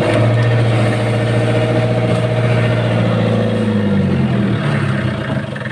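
A fishing boat's engine running steadily, its note shifting slightly about four seconds in.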